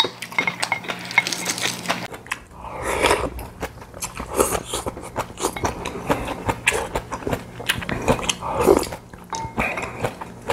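Close-up eating sounds: chewing and slurping soup from a spoon, with many short clicks of chopsticks and spoons against ceramic bowls.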